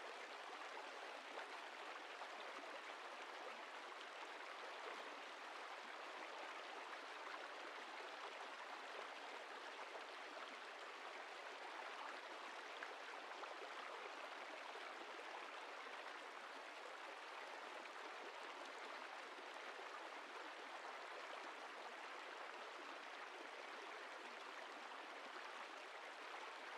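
A river flowing with a faint, steady rush of water.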